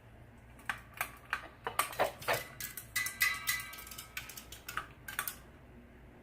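Irregular run of sharp clicks and light metallic rattles, with a brief ring around the middle, over a faint steady low hum from a Hampton Bay Southwind ceiling fan on a floor test.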